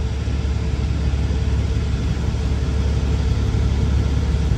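Semi truck's diesel engine idling with a steady low hum.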